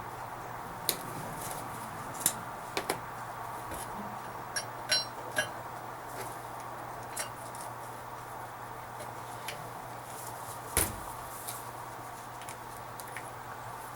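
Scattered light clicks and metal clinks of a new U-joint and its bearing caps being handled, with one louder knock about eleven seconds in, over a steady low hum.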